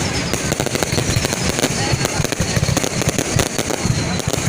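Fireworks going off in a dense, continuous stream of crackling pops with no break.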